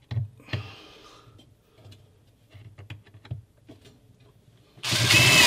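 Light clicks and taps of a screw being handled and set on the driver bit. About five seconds in, a cordless drill-driver runs with a whine for about a second, starting a screw into the cabinet without driving it all the way down.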